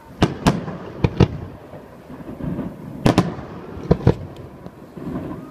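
Aerial fireworks shells bursting: about eight sharp bangs that come in four quick pairs.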